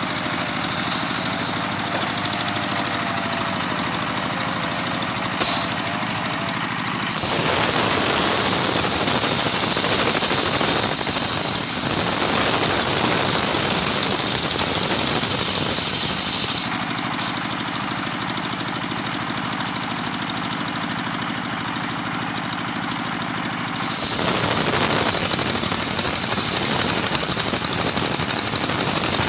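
Homemade sawmill's engine running steadily, twice turning louder with a high, hissing sawing noise as the blade cuts through a coconut trunk: once from about 7 seconds in for about ten seconds, and again from about 24 seconds in.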